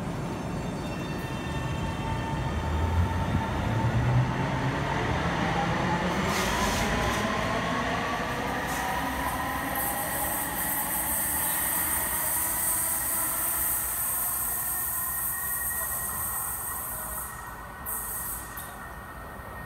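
Ottawa Confederation Line light-rail train (Alstom Citadis Spirit) pulling out of the station. Its motor whine rises in pitch as it speeds up. From about ten seconds in the wheels give a high squeal, and the sound fades near the end as the train leaves.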